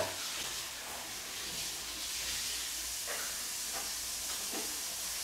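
Steady hiss in a kitchen by the stove, with two faint soft knocks about three and four and a half seconds in.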